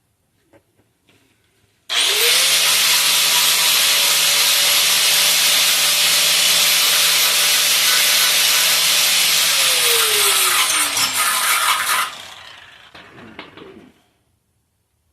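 Electric grinder spinning up about two seconds in and grinding a spot down to clean bare metal so the welder's ground clamp gets a good contact, then winding down with a falling whine once released.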